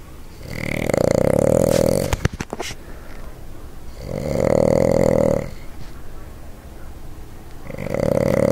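Boston Terrier snoring up a storm: three long snores, each about a second and a half, spaced about three and a half seconds apart, with a quick run of clicks just after the first.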